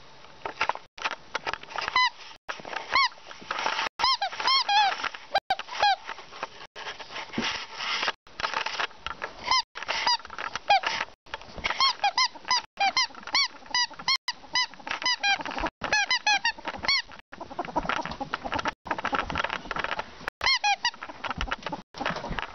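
Ferret dooking: quick runs of short chuckling clucks, several a second, in bursts with brief pauses between.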